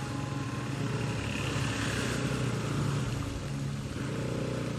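Bajaj Pulsar NS200 motorcycle's single-cylinder engine running steadily under way, with a continuous rush of road and wind noise.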